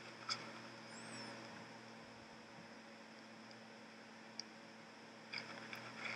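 Faint room tone with a steady low electrical hum and a few soft, scattered clicks.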